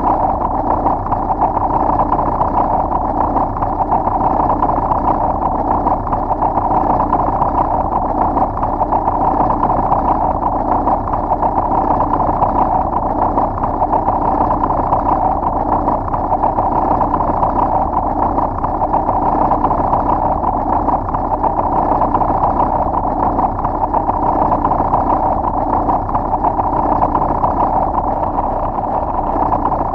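Earth rumbling lightly: a steady, unbroken rumbling noise that holds at one level throughout.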